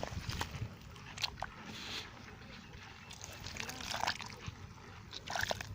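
Wet mud and water squelching and splashing in irregular small sloshes and clicks, as in a flooded rice paddy after rain.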